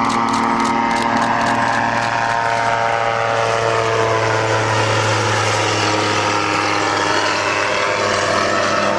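Xenon gyroplane flying past low, its engine and pusher propeller droning steadily; the pitch drops around the middle as it passes by.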